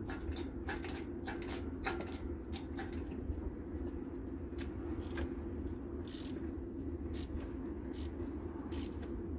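Rapid mechanical clicking, about four clicks a second at first, then slower single clicks from about four seconds in, over a steady low hum.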